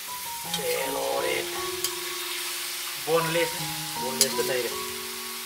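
Beef cubes sizzling as they fry in a metal wok, stirred by a metal ladle that scrapes and clacks against the pan a few times. Background music with singing runs underneath.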